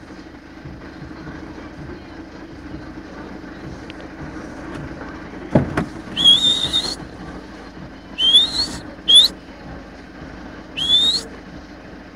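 A person whistling four rising whistles, the first the longest, as calls to a wolf, over a steady low hum. A sharp knock comes just before the first whistle.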